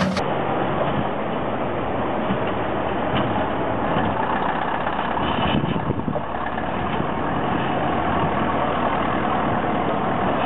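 Old crawler bulldozer's diesel engine running steadily.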